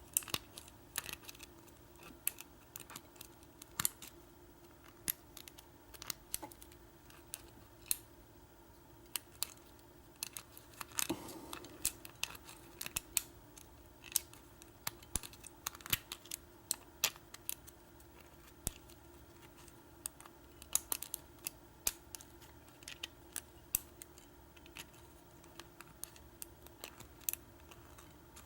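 Lock pick and tension wrench working in a Schlage deadbolt's keyway while single-pin picking: irregular small metallic clicks and scrapes as the pins are lifted.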